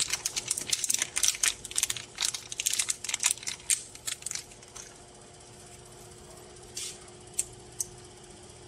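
Thin plastic packaging crinkling and rustling as a small LED bulb is unwrapped by hand, a dense crackle for about four and a half seconds. A few small clicks follow near the end.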